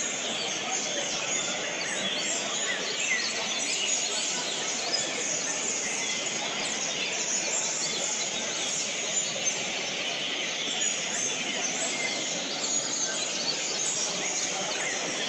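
Many caged green-winged saltators (trinca-ferro) singing at once, a dense, unbroken chorus of overlapping chirps and whistled phrases, over a low murmur of voices.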